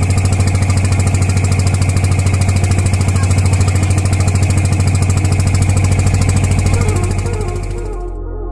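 A wooden tour boat's engine running steadily under way at sea, a loud low throb with fast, even pulses. It fades near the end and gives way to music.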